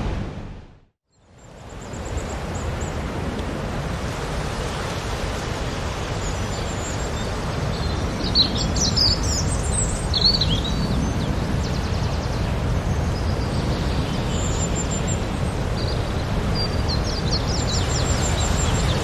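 Outdoor ambience fading in about a second in: a steady low rumble of noise with birds chirping now and then over it.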